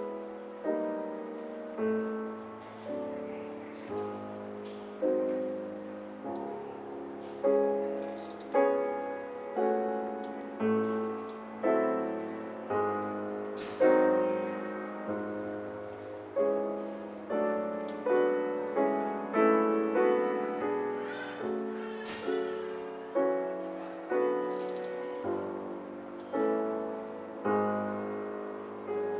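Grand piano played live in a classical piece: notes and chords struck about once or twice a second, each ringing and fading before the next.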